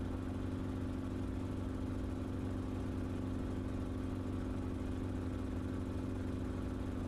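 Enstrom helicopter in flight: a steady engine and rotor drone with a strong constant hum and its overtones.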